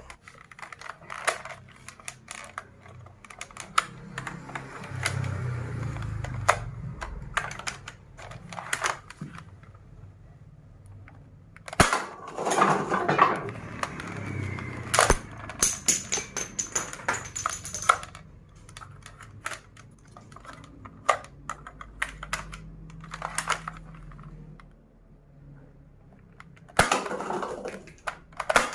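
Irregular plastic clicks and knocks from toy guns being handled, with a few louder clusters of snaps and short scraping sounds.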